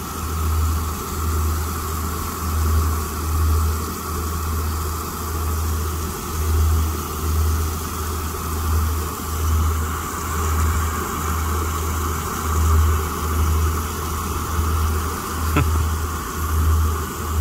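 Engine idling: a low hum that swells and fades in a regular pulse, about once a second, under a steady higher whine.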